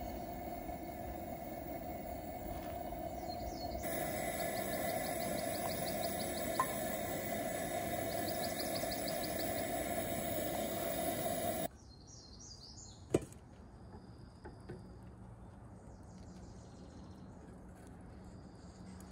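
Coleman dual-fuel camp stove burner running with a steady hiss under a cooking pot, with a high rapid chirping over it; the stove noise stops suddenly about twelve seconds in, leaving a quieter outdoor background with a few short bird chirps and one sharp click.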